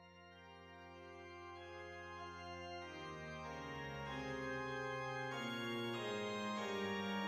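Slow instrumental music of sustained, organ-like chords fading in, with the chord changing a few times.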